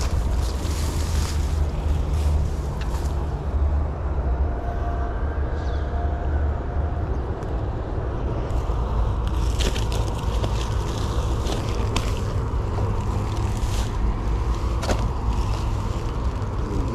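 Steady low wind rumble on the microphone, with scattered clicks and rustling from handling a freshly caught tilapia in the grass, mostly in the second half.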